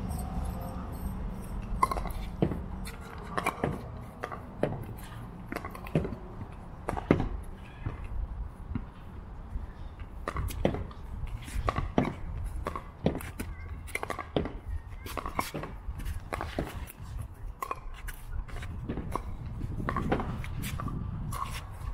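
Pickleball paddles striking the plastic ball: a string of sharp pops at irregular intervals, at times several in a second, as in a rally.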